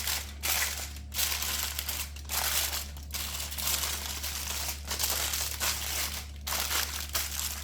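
Aluminium foil crinkling and crumpling as it is folded tightly around a fish, in bursts with brief pauses.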